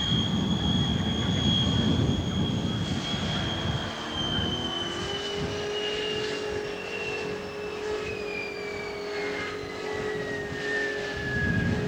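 Jet aircraft engine running, a rumble under a high whine that slowly falls in pitch.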